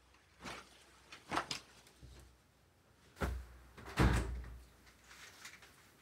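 A curtain being taken down from its rail: a handful of knocks and clacks from the hooks and rail, with the fabric rustling; the loudest knock comes about four seconds in.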